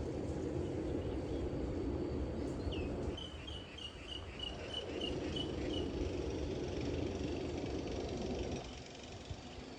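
Outdoor ambience of distant road traffic with a steady high insect drone, while a bird calls a quick run of about ten short, evenly spaced notes from about three to six seconds in. The traffic noise eases near the end.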